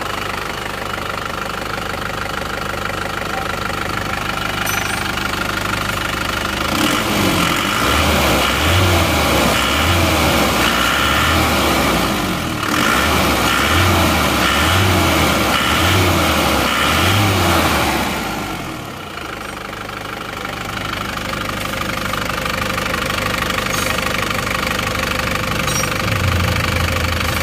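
Isuzu Panther turbo-diesel four-cylinder engine running steadily after a rebuild with a new cylinder liner and piston rings. For a stretch in the middle it grows louder, with a regular low throb about once a second.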